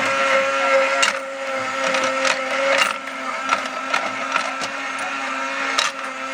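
A steady motor hum with irregular sharp clicks and knocks over it.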